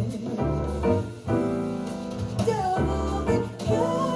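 A vocal song with piano and bass played back through a 1954 Soviet 8GD-1 full-range loudspeaker with a Siemens tweeter, picked up by a phone in the room. A chord is held for about a second partway through, and the singing line returns near the end.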